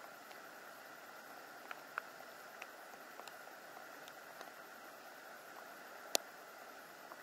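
Faint steady outdoor background hiss, with scattered small ticks and one sharp click about six seconds in.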